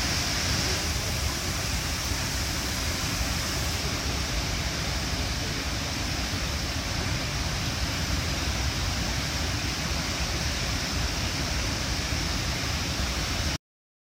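Large waterfall: a steady rush of water falling into a river gorge. It cuts off suddenly near the end.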